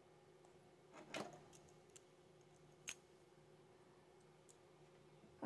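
Near silence with a faint steady hum, broken by a few light clicks and taps as the HO-scale locomotive's drive parts are handled: a couple about a second in and one sharper click near three seconds.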